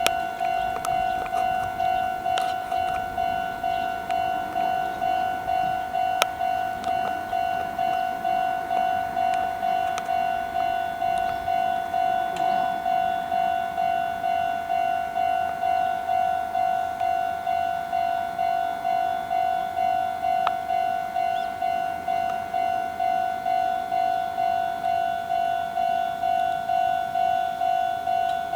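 Japanese railway level-crossing warning bell ringing steadily, about one and a half strokes a second, the signal that a train is approaching.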